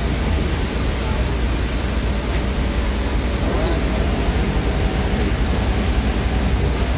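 Cabin noise of a bus running at highway speed in heavy rain: a steady low engine and road rumble under an even hiss of rain and wet tyres.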